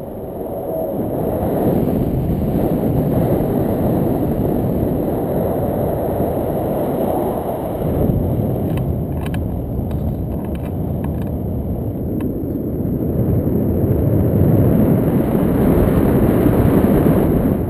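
Wind rushing over the microphone of a pole-mounted camera in flight under a paraglider: a loud, steady low rumble that builds about two seconds in and swells again near the end.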